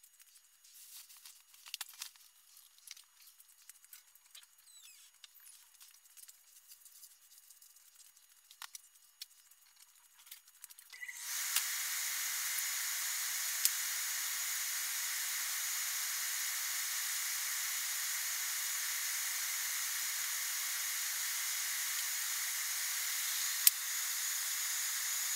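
Faint scattered clicks and ticks, then about eleven seconds in a steady, even hiss starts abruptly and holds, with a single sharp click near the end.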